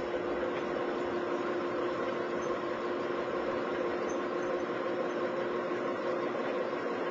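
Homemade pulsed electric motor on a converted riding lawnmower running steadily: an even hum with a few steady tones over a hiss.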